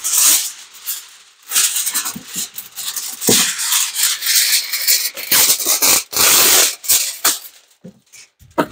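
A sheet of reflective foil insulation crinkling and rustling loudly as it is unrolled and handled, in uneven bursts, with a soft knock about three seconds in.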